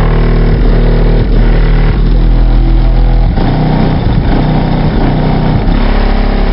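Bass-heavy music played very loud through a wall of eight 12-inch Pioneer TS-W3002SPL subwoofers, the deep bass notes changing every second or so.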